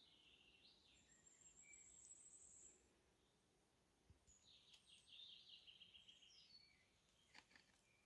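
Faint songbird song in the forest: two rapid trilled phrases a few seconds apart, high-pitched, with a couple of short faint clicks near the end.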